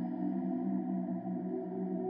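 Background ambient electronic music: sustained low droning tones.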